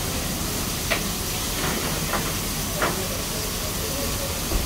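Anchovies frying in oil in several pans over gas burners: a steady sizzle and hiss, with a few short clinks and a low thump near the end.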